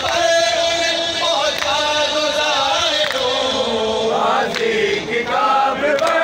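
Group of men chanting a noha, a Shia mourning lament for Imam Hussain, together; the sustained voices slide up and down in pitch.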